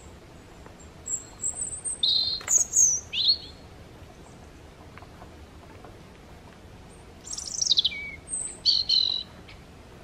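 A small bird singing: two short, high, thin phrases about five seconds apart, each with quick descending trills and whistled notes.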